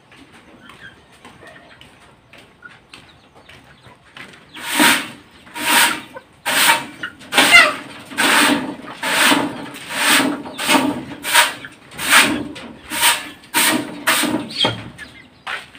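Hand broom sweeping over the top of a wood-and-wire chicken cage: after a few quiet seconds, about a dozen quick, scratchy back-and-forth strokes, a little more than one a second.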